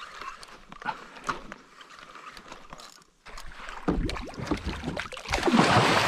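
Small clicks and light water sounds, then from about four seconds in loud splashing as a big hooked fish thrashes at the surface right beside the kayak, loudest near the end.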